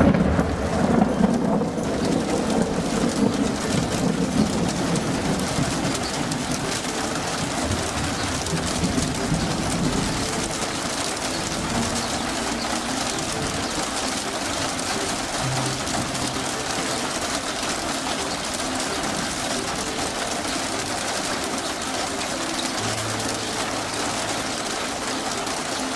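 Rain and hail falling steadily on the yard, a constant hiss that is a little louder in the first couple of seconds.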